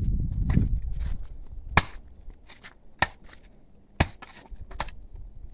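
Clamshell posthole digger's steel blades being driven into hard, crusted clay soil: three sharp chopping strikes about a second apart, with lighter clicks of the blades and handles between them. The top layer of soil is dry and hard after only a light rain.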